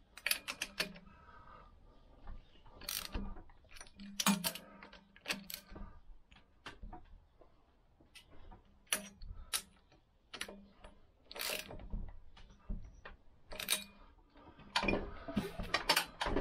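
Ratchet spanner and socket clicking and knocking irregularly as the cylinder head nuts are given half turns.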